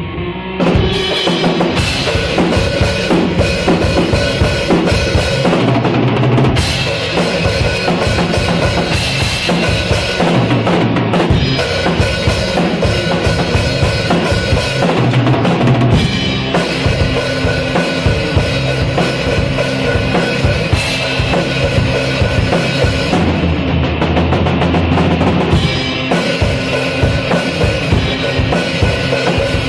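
Rock music in a passage without words, driven by a full drum kit: bass drum and snare hits over other instruments.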